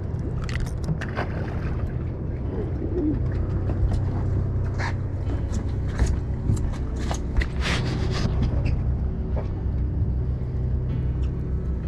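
Boat engine running steadily at idle, a low hum, with scattered sharp clicks and knocks on top.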